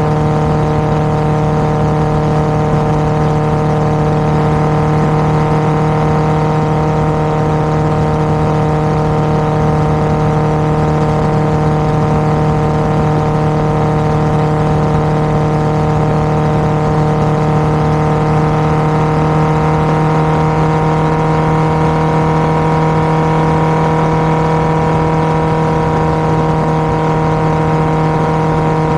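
Honda CBR1000RR's inline-four engine running through an SC-Project aftermarket exhaust, held at a steady, unchanging pitch with no revving.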